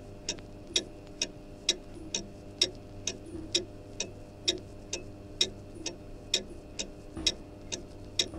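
A clock ticking steadily at about two ticks a second, over a steady low hum.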